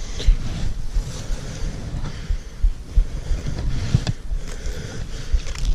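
Wind buffeting the microphone outdoors: an uneven low rumble with gusty thumps and a faint hiss above it.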